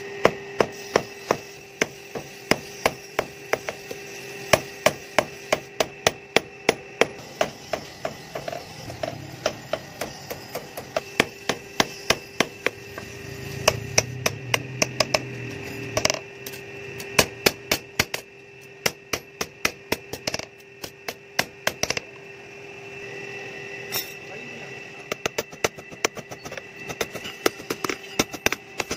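Hand hammer striking a steel sickle blade on a steel anvil block, forging it into shape, about two blows a second with a few short pauses between runs of strikes.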